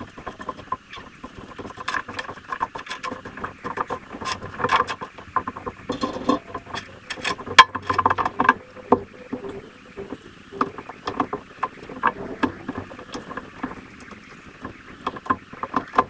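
Irregular light taps, knocks and rustles of shoes being changed on a plywood platform: plastic slides clacking on the boards and sneakers being handled and pulled on. One sharp knock stands out about halfway through.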